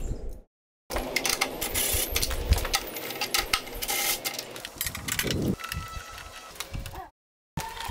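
Ratchet and socket extension clicking and rattling as a nut is run down onto a stud: dense, irregular metallic clicks, broken twice by short dead silences.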